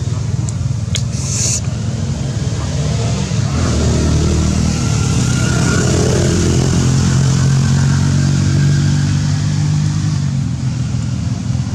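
A motor vehicle's engine running steadily nearby, growing louder about three and a half seconds in and easing off near the end.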